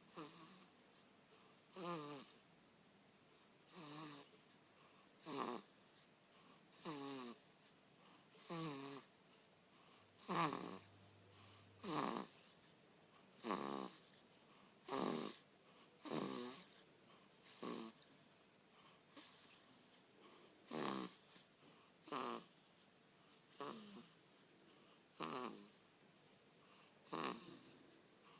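A baby snoring in its sleep: a short snore with a falling pitch about every one and a half seconds, at a quick, even breathing rhythm.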